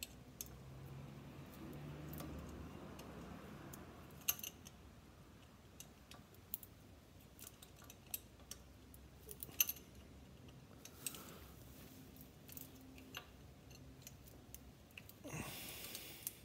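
Scattered, irregular light metallic clicks and taps of a hand tool on the bolts of a driveshaft-puller clamp plate as they are tightened, with a short rustle near the end.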